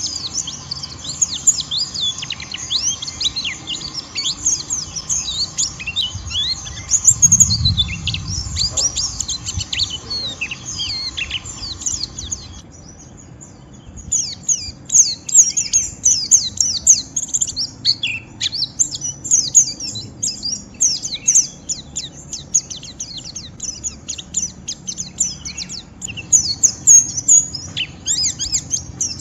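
White-eye (pleci) twittering a rough, rapid 'ngeriwik' chatter, dense runs of quick high chirps. It is a challenging call meant to provoke rival white-eyes into answering. The chatter breaks off for about a second and a half roughly halfway through, then resumes just as densely.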